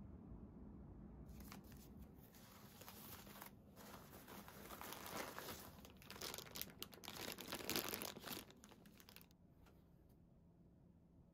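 Packaging crinkling and rustling in irregular bursts as a parcel is unpacked by hand, starting about a second in and stopping near the end.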